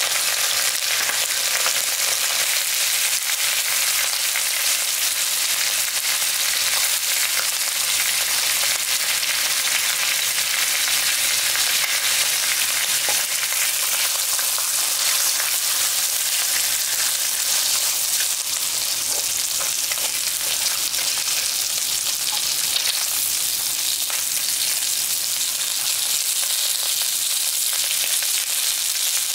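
Abalone and whole garlic cloves frying in melted butter in a pan: a steady, even sizzle with faint fine crackles.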